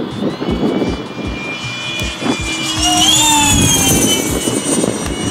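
Electric ducted-fan model jet flying past: a high fan whine that swings up in pitch and then drops as it passes, loudest about three seconds in.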